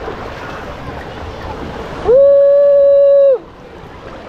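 Water rushing and splashing on a short pool water slide during the ride. About two seconds in, a loud steady held tone lasts just over a second, gliding up at its start and down at its end, and after it the water sound is quieter.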